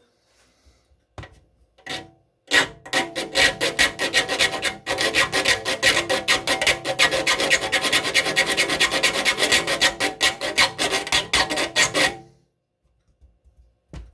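Triangular saw file rasping back and forth across a hand saw's steel teeth in quick repeated strokes, sharpening the saw. A couple of light strokes come first, then a long fast run of strokes starts about two and a half seconds in and stops about two seconds before the end.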